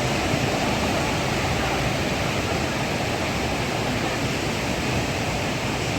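Ocean surf: a steady, unbroken rush of waves.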